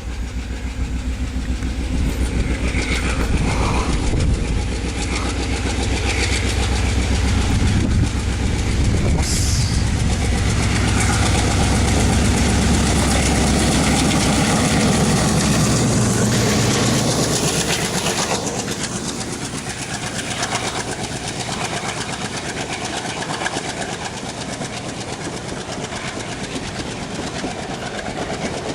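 WDM3A ALCO diesel locomotive, with its 16-cylinder ALCO 251 engine, running loud and deep for roughly the first two-thirds. The engine sound then drops off, leaving the train's wheels clattering over the rail joints.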